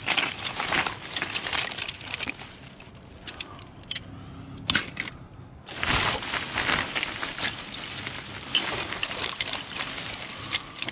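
Thin plastic rubbish bags crinkling and rustling as gloved hands rummage through them, with small toys rattling against each other. It goes quieter for a few seconds in the middle and picks up again about six seconds in.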